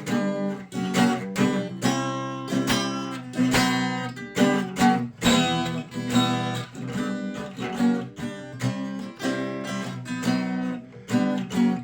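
Acoustic guitar strummed in a steady rhythm of chords, with no singing: an instrumental passage between verses of a song.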